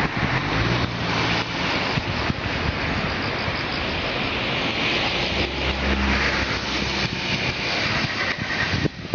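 Steady rushing of a river in flood, swollen almost to overflowing by typhoon rain, with motor vehicles passing on the road bridge. The sound drops away abruptly near the end.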